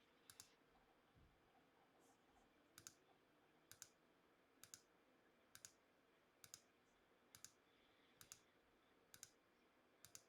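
Faint computer mouse clicks, about one a second, each a quick double tick of press and release, clicking through the rounds of an online randomizer.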